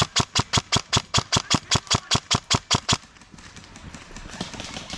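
Airsoft gun firing a steady string of sharp shots, about five a second, which stops about three seconds in.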